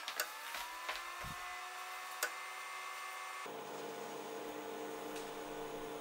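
HP 8753ES network analyzer switched on: a click, then a hum whose tones rise in pitch as it spins up and settle within about a second, with another click around two seconds in. About three and a half seconds in, a lower, fuller steady hum sets in.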